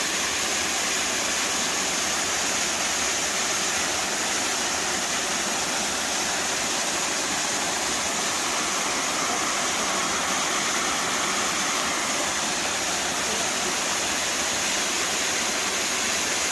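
Mountain waterfall pouring heavily, a steady loud rush of water.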